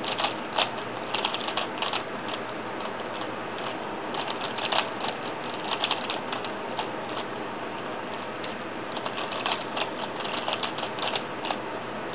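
Rubik's cube clicking and clacking as its plastic layers are turned quickly by hand, in runs of rapid turns broken by short pauses, as in executing memorised Old Pochmann swap algorithms during a blindfolded solve.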